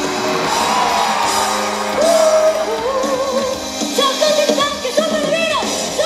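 A woman singing a pop song live into a microphone over a loud band backing track, with vibrato on held notes, and shouts mixed in.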